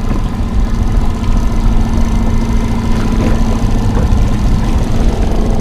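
Boat motor running steadily at trolling speed, a constant hum, with wind rumbling on the microphone.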